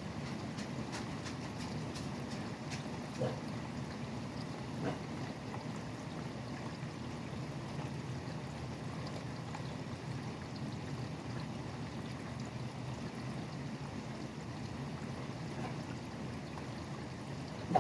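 Steady rain, with a low, even rumble of highway traffic underneath. Two brief louder ticks come about 3 and 5 seconds in.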